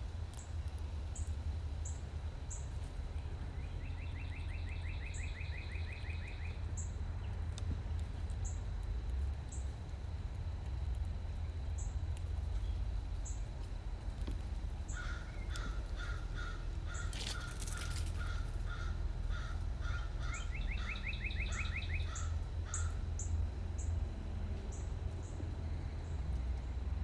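Wild birds calling: a fast trill twice, a bird repeating one call about twice a second through the second half, and short high chips scattered throughout, over a steady low rumble.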